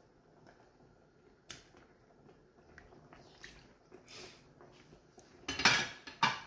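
Cooking utensils clinking and scraping against a frying pan of creamy sauce, with a short loud clatter near the end.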